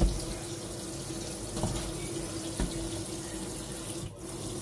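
Kitchen faucet running into a stainless steel sink, the stream splashing through leafy herbs in a metal colander as they are rinsed. Two light knocks come partway through.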